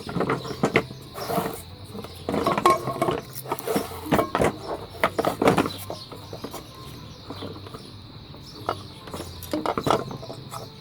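Blender parts being handled and taken apart: irregular clicks, knocks and scrapes of plastic and metal, busiest in the first half and again near the end.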